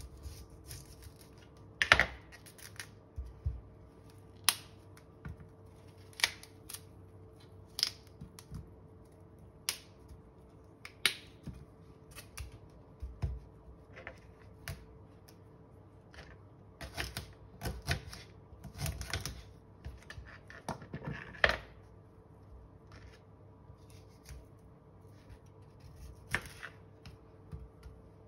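Knife cutting broccoli florets from the head on a plastic cutting board: irregular crisp snaps and clicks as the blade goes through the stems and meets the board, coming thickest a little past the middle.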